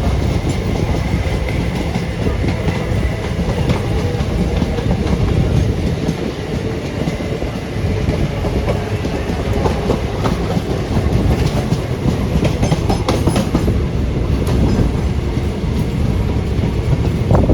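Passenger trains running along the track: a steady loud rumble of wheels on rail, with a run of clickety-clack as the wheels pass over rail joints in the second half.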